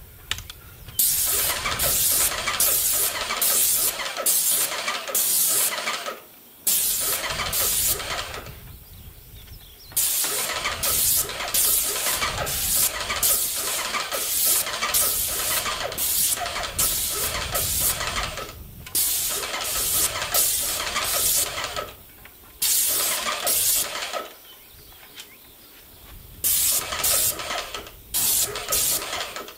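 Cheap electric airless paint sprayer running, its pump pulsing about twice a second under the hiss of the spray. It runs in long spells broken by a few short pauses.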